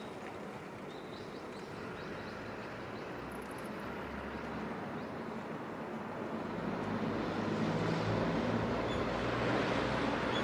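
Steady rumble of a motor vehicle that grows louder through the second half, with a low engine hum coming up.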